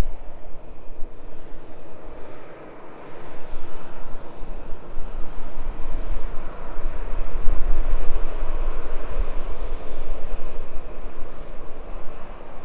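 Jet engines of an Airbus A320-family airliner running on the runway: a steady, noisy roar that dips briefly, then grows louder a few seconds in.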